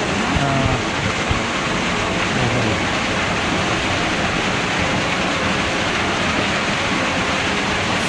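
Small waterfall splashing down between boulders into a rocky plunge pool: a steady, unbroken rush of falling water.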